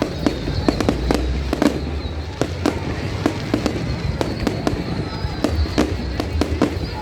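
Fireworks display: a rapid, irregular run of sharp bangs and crackles from bursting shells, over a continuous low rumble.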